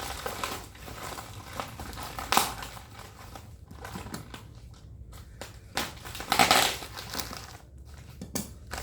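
Packing material crinkling and rustling as the box of a new overlock machine is unpacked by hand, with louder crackles about two and a half seconds in and again around six and a half seconds.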